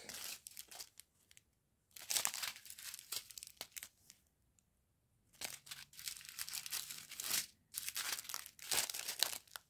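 Small clear plastic sachets of diamond painting drills crinkling as they are handled, in several bursts with short pauses between them.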